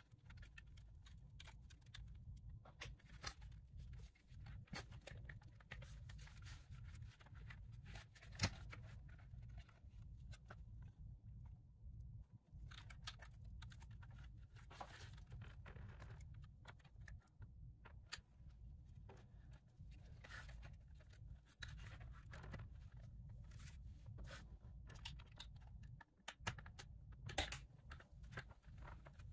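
Quiet, scattered small clicks, scrapes and rustles of hands working the plastic housing, connectors and wiring of an opened BMW pop-up navigation screen unit, with one sharper click about eight seconds in and a few louder ones near the end, over a faint low steady hum.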